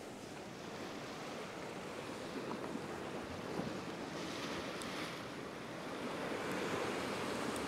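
Ocean surf washing against a rock ledge, a steady rushing hiss with wind on the microphone. It grows a little louder about four seconds in.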